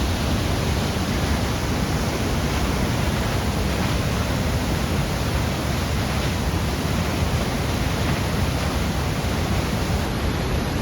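Niagara Falls: steady rush of falling water, an even, unbroken noise with a strong low rumble.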